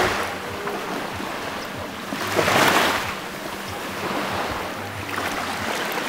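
Small waves washing onto a sandy shore, with one fuller wash about two and a half seconds in. Wind buffets the microphone now and then.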